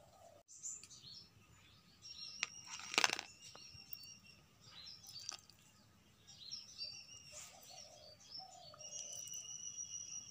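Birds chirping in the background, with a steady high-pitched trill coming in near the end and a short loud scuff about three seconds in.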